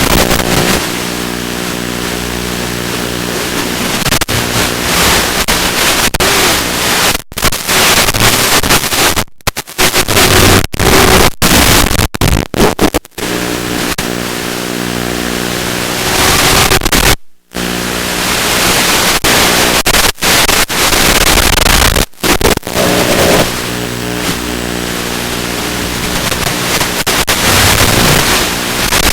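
Small FPV quadcopter's electric motors and propellers running and surging with the throttle: a steady multi-toned hum in calmer stretches, a loud rushing sound at full throttle, and several abrupt cuts where the sound drops out for a moment.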